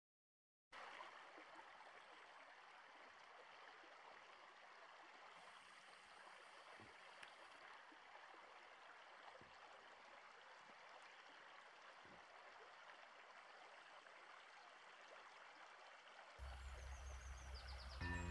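Faint, steady rush of a small forest stream flowing, starting about a second in after a moment of silence. Near the end a louder low rumble and hiss come in, and music begins.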